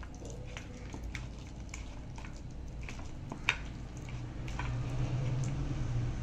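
Thick banana-and-maida batter being mixed and beaten in a bowl: soft squelching with scattered light clicks.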